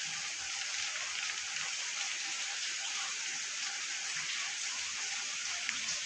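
Steady hiss of rain falling, with a few scattered drips.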